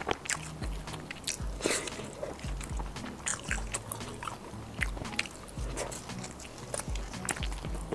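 Close-miked biting and chewing of a sauce-coated fried chicken skewer, with many short sharp crackles, over background music with a steady low beat.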